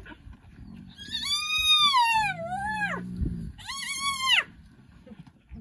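Spotted hyena giving high-pitched whining squeals at a lion kill: a long call that swoops down and back up in pitch, then a second shorter one, with a low growl under the end of the first.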